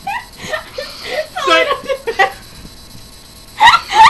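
Girls' voices laughing and chattering without clear words, with a high wavering laugh about a second and a half in and a loud outburst near the end.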